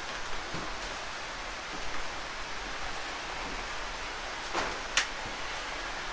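Steady rushing of a mountain stream below, heard as an even noise. A couple of sharp knocks cut through it about four and a half and five seconds in, the second one louder.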